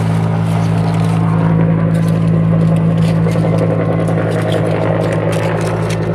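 A steady low mechanical hum, like an engine running, under light rustling and crackling of leaves and branches as a hand pushes through garden plants.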